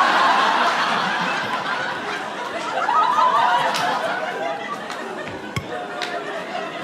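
Audience laughing, loudest at the start, swelling again about three seconds in, then trailing off.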